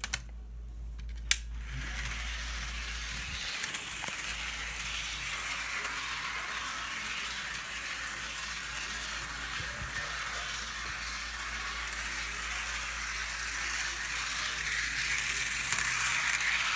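A couple of sharp plastic clicks, then an HO-scale Thomas model locomotive running along the track: a steady hissing rattle of wheels and motor that grows a little louder near the end.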